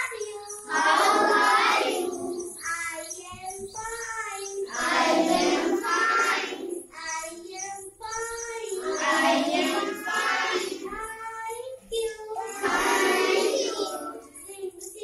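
A class of young children singing a song, the dense full-group phrases taking turns with thinner, clearer lines about every two seconds, like a lead voice and the class answering.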